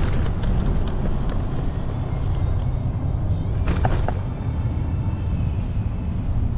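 Steady low wind rumble on the microphone during a ride, mixed with road and traffic noise, with a few light clicks and a short cluster of sharper sounds about four seconds in.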